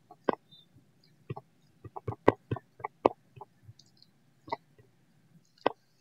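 Typing on a phone's touchscreen keyboard: a string of short, irregular taps, about a dozen, bunched most closely around the middle.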